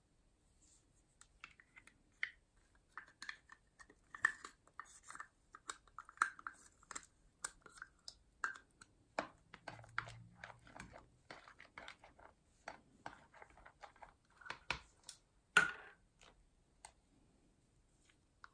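Thick orange paint being worked into white foam in a glass dish with a wooden stick and scraped from a plastic cup: a run of small, irregular sticky clicks and crackles, with one louder crack about fifteen seconds in.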